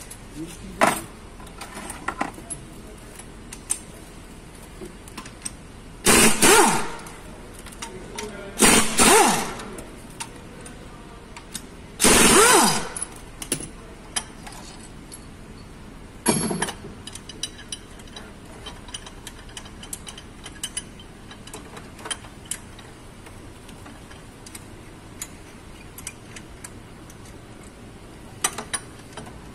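Hand tools working on a Chevy Aveo engine: a ratchet wrench clicking on bolts, with scattered small metal clicks. Four louder bursts of metal scraping and clatter, each under a second to about a second long, come at intervals through the middle.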